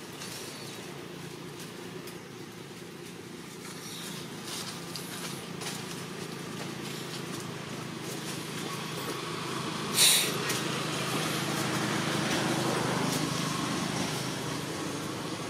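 A motor engine hums steadily and grows slowly louder, peaking a couple of seconds before the end. One brief sharp sound comes about ten seconds in.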